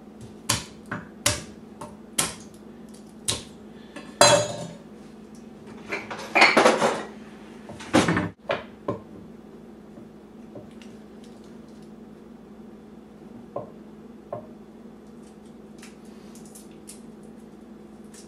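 Kitchen utensils and dishes knocking and clattering on a countertop while fresh garlic cloves are handled: a run of sharp knocks and a few longer rattling scrapes over the first nine seconds or so, then only a couple of light taps.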